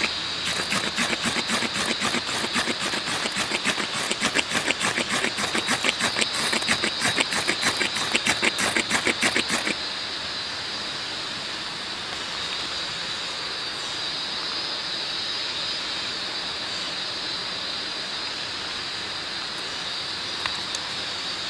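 Ferrocerium rod scraped rapidly with a metal striker, about four strokes a second for roughly ten seconds, throwing sparks onto fine wood shavings until the tinder catches. The strokes then stop, leaving a steady background hiss with a faint crackle near the end.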